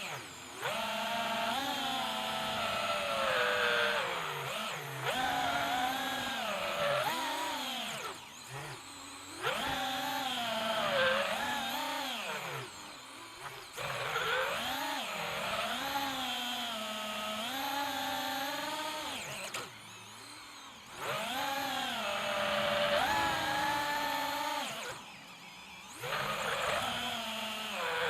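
FPV quadcopter's motors and propellers whining, the pitch rising and falling constantly with the throttle. The sound dips briefly several times, where the throttle is cut.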